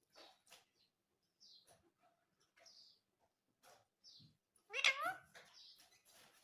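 Indian ringneck parrot vocalizing: a few soft short chirps and clicks, then a louder wavering, meow-like call about five seconds in.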